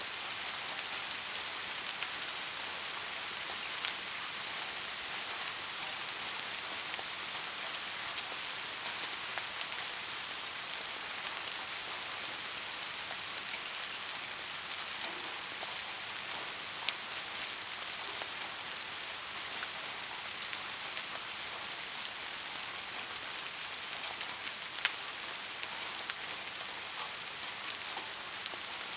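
Steady rain falling, an even hiss with scattered sharper drop ticks, a few louder ones standing out.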